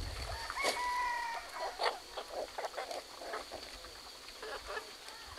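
Chickens clucking, with one drawn-out call about a second in, over scattered light knocks as corn cobs are handled in a woven basket.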